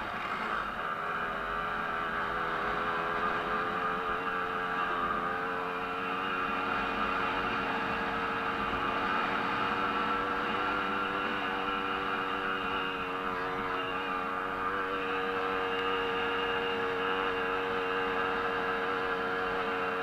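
Small 50 cc two-stroke moped engine held at high, nearly steady revs under racing load, heard close up from the rider's helmet, with a slight wavering in pitch as the throttle and ground change.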